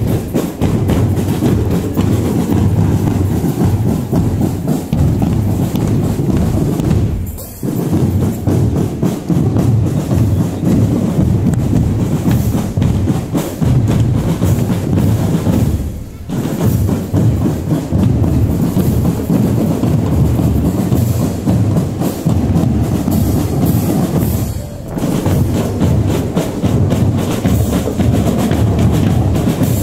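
Marching band playing with heavy bass drums and percussion, in a continuous beat that breaks off briefly three times.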